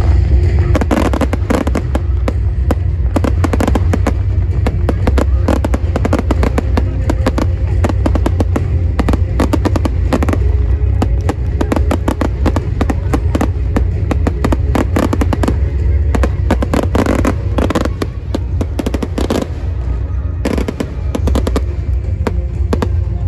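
Fireworks going off in rapid, dense volleys of bangs and crackles, with music playing underneath.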